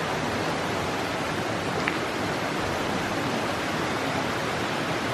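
Waterfall on a forest stream: a steady, even rush of falling water.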